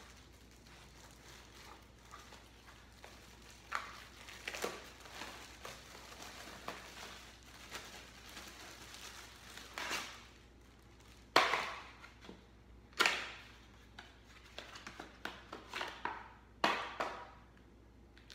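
Small cardboard box and plastic packaging being opened and handled by hand. A run of short rustling and tearing noises comes in bursts, and the three loudest fall a little past the middle and near the end.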